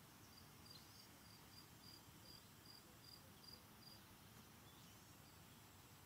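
Faint outdoor ambience: an insect gives a row of short, high, evenly spaced chirps, about two or three a second, that stop about four seconds in, with a few faint bird chirps over a steady low hiss.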